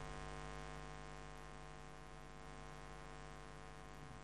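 Faint, steady electrical mains hum, a low buzz.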